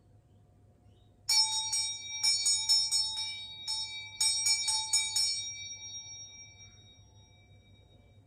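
Small hand bell shaken in two quick runs of clapper strikes, the second a second or so after the first, then left to ring out with a high, clear tone that fades away over a few seconds.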